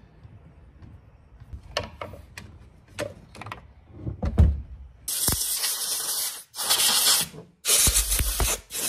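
A few knocks and clicks of tools being handled, then four bursts of hissing air from a compressed-air blow gun, the first about a second and a half long, blowing off a Stihl chainsaw.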